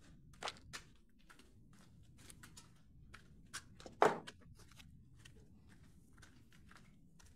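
Footsteps in shoes on a dusty concrete floor, a string of light uneven steps, with one louder knock about four seconds in.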